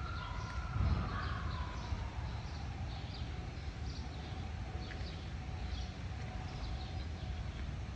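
Birds chirping, short high calls repeating over and over, with a longer falling whistle near the start. Beneath them runs a steady low rumble and a faint drawn-out hum.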